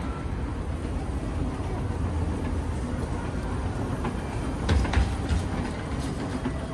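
Low, steady rumble of a railway station interior: escalator machinery and trains. A few short knocks and footsteps about five seconds in.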